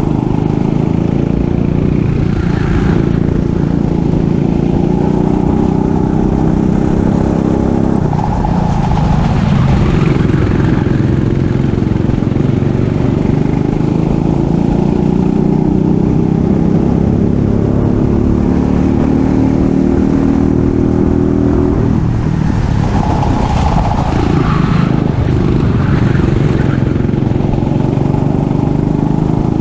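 Racing kart engine at full race pace, its pitch climbing steadily in long rises. It drops off sharply about 8 seconds in and again about 22 seconds in as the kart brakes for corners, then picks up again.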